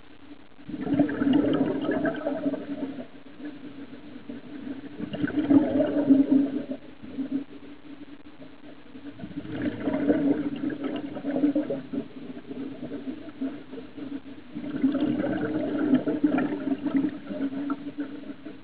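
Scuba diver's regulator exhaust bubbles heard underwater: four bubbling exhalations, each about two seconds long, coming every four to five seconds.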